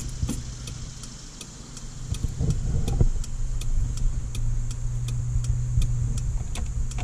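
Steady low hum with a regular light ticking, about three ticks a second, in a parked car with the ignition switched on and the engine not running. A louder knock comes about three seconds in.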